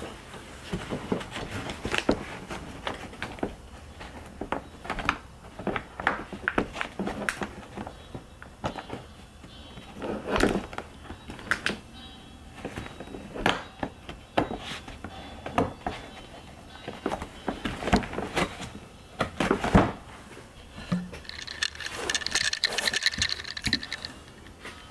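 Irregular knocks, clinks and rattles as gloved hands handle parts on the underside of a Jeep, with a brief cluster of higher tones near the end.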